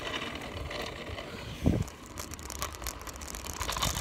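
Kick scooter wheels rolling over rough asphalt, a steady crackling, crunchy rolling noise, with one short thump about a second and a half in.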